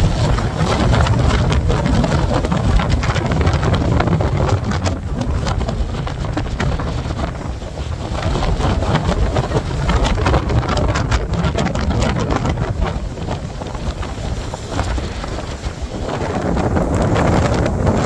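Blizzard wind gusting hard across the microphone, a heavy rumbling buffet with many small crackles, easing a little midway and rising again near the end.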